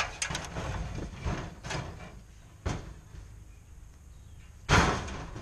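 Corroded aluminium sheet and scrap metal being thrown into a wooden-sided trailer: a series of clattering knocks, with one loud crash near the end.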